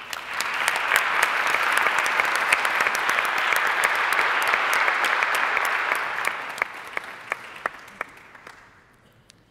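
Audience applauding: the clapping swells at once, holds steady for about six seconds, then dies away into a few last scattered claps.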